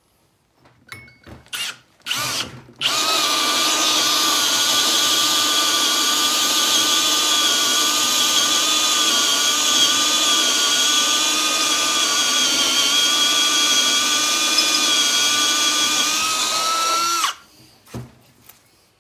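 Milwaukee cordless drill driving a hole saw through a wooden track plate: a couple of short bursts, then a steady run with a motor whine for about fourteen seconds that stops near the end, the pitch rising slightly just before it stops. A paddle-bit clean-out hole drilled beside the cut lets the chips fall through so they don't clog the saw.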